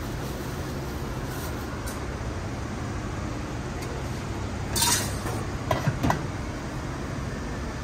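A steady background hum of a busy market stall, broken near the middle by a few sharp metallic clinks of utensils against dishes or pans: one about five seconds in, then a quick cluster a second later.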